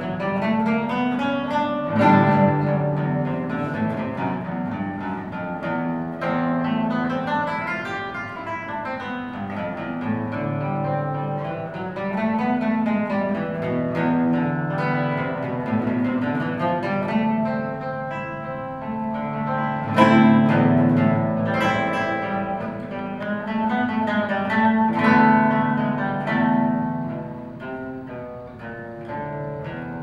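Solo classical guitar played fingerstyle, a continuous flow of plucked notes and chords with two sharply struck loud chords, one about two seconds in and one about twenty seconds in.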